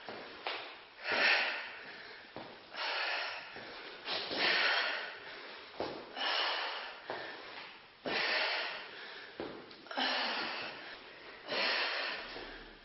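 A woman breathing hard during a bodyweight warm-up, with a loud, noisy exhalation about every second and a half.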